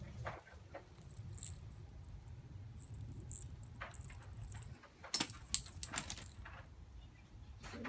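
A pet's collar bell or tags jingling in several short bursts as the animal moves, with a few sharp clicks near the middle.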